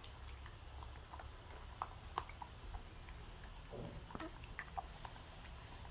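A pet monkey eating: faint chewing with scattered small clicks.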